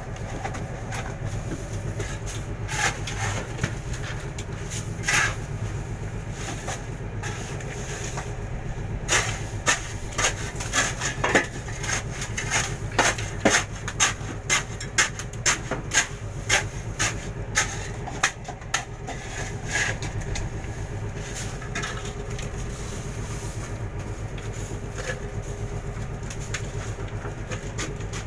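Steady low hum of the fishing boat's engine, with repeated sharp knocks as fish and ice are handled and stacked in the hold, coming in a quick run of about one or two a second through the middle.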